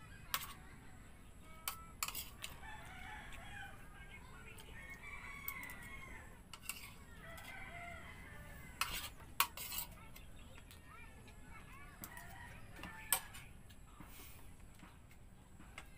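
A metal spoon clinking and scraping against a plate several times, the sharpest clicks about 9 s in. Chickens cluck and a rooster crows in the background.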